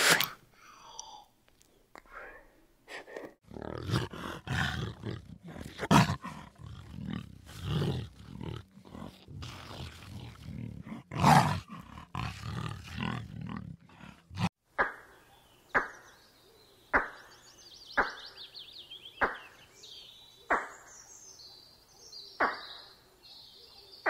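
Animal calls: loud, irregular roars and grunts for about the first half, then a run of short, sharp calls about one a second with faint high chirping behind them.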